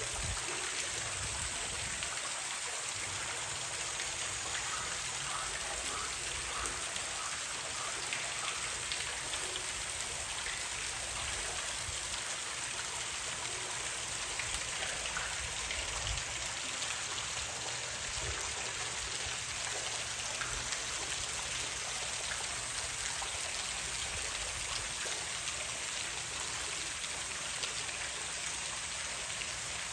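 Water running steadily from a small artificial waterfall into a rock pool, an even rushing hiss with no breaks.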